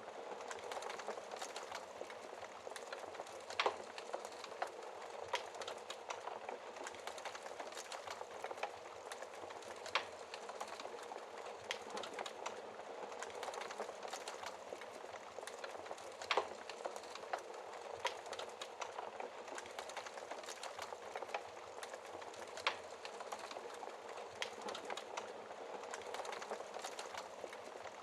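Wood fire in a fireplace crackling: a steady hiss of small crackles with sharp pops at irregular intervals, a few of them louder than the rest.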